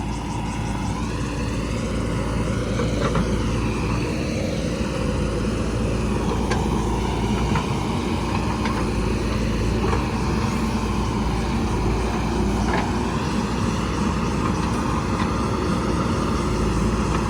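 JCB 3DX Super backhoe loader's diesel engine running steadily while at work digging, with a few faint sharp clicks through the middle.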